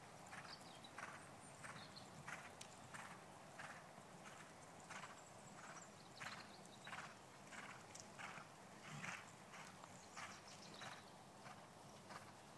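Horse cantering on a soft rubber-chip arena surface: a steady, faint beat of muffled hoof strikes, about one and a half strides a second.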